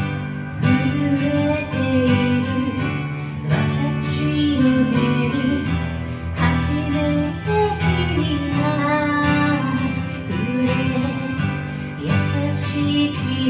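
A woman singing a J-pop ballad karaoke-style over an acoustic guitar backing track.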